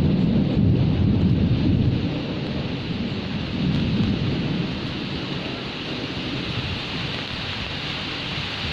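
Steady rain with thunder: a low thunder rumble over the first couple of seconds eases off, leaving the even hiss of the rain.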